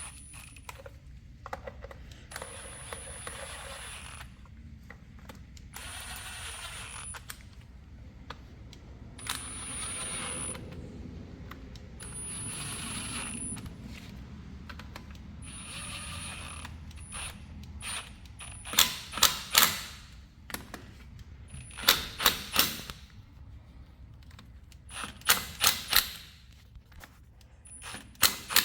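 A power tool's motor whirring, run in short one-second spurts as the plastic hub cap's bolts are spun in. Then come several short rattling bursts of impacts, each three or four quick hits, as they are snugged down.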